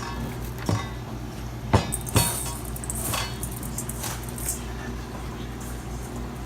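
A few sharp knocks and clinks of kitchen utensils against bowls while pickle slices are dredged in flour, egg and panko, with some lighter scraping in between, over a steady low hum.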